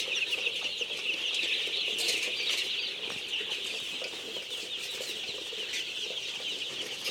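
A flock of Golden Misri chickens calling without pause: a dense chorus of many overlapping high-pitched cheeps over lower clucking.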